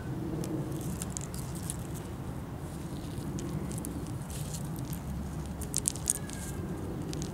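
Scattered light clicks and taps, bunched in two spells with a pair of louder taps late on, as an Indian ringneck parakeet's beak and claws work over a hanging toy of hard plastic flowers and beads, over a steady low background rumble.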